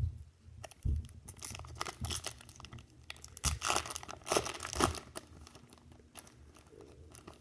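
Baseball card pack wrapper being torn open and crinkled by hand: a run of crackling rustles, loudest a few seconds in, then dying down to quieter handling.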